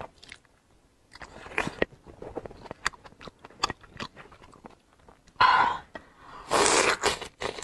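Close-miked crunching, chewing and biting of whole soy-and-chili-marinated shrimp, with the shells crackling as they are peeled by hand. Two louder bursts of crackling come about two-thirds of the way through and again near the end.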